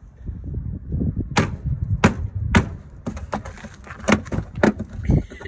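Sharp clicks and knocks as the old orange side repeater is worked out of a Land Rover Defender 90's front wing by hand: three spaced clicks, then a quicker run of them, over a low rumble.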